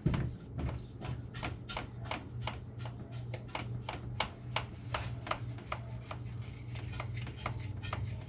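Hand-operated fluid transfer pump being worked to siphon old gasoline out of a truck's fuel tank: quick, even strokes with a rubbing click, about three a second, over a steady low hum.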